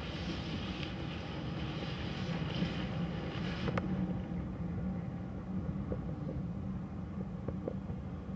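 Passenger carriages rolling past on the rails with a steady low rumble. A sharp click comes about four seconds in, and a few lighter clicks follow near the end.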